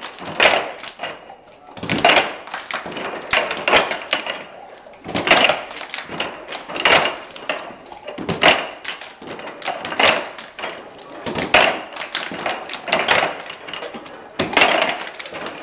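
Cups clattering and knocking on a wooden floor as a circle of players passes them in a cup game. The hits land together in a loud cluster about every one and a half seconds, with lighter taps between.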